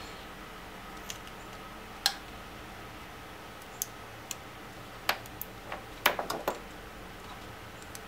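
Scattered light clicks and taps from hands handling wiring-harness wires and connectors. The sharpest click comes about two seconds in, and a quick run of clicks follows past the middle, over a steady faint hiss.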